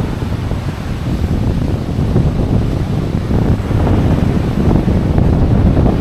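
Wind buffeting the microphone: a loud, gusty low rumble, with beach surf behind it.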